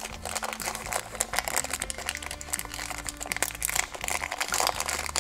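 Packaging crinkling and rustling as it is handled, a dense run of small irregular crackles.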